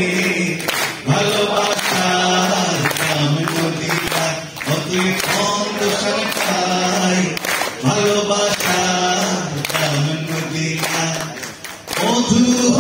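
A man singing a Bengali song live into a microphone, amplified through the hall's PA, with long held notes.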